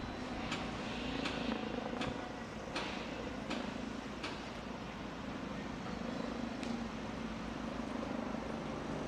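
Construction-site noise: heavy machinery running steadily, with short sharp clanks, about one a second in the first half and one more later.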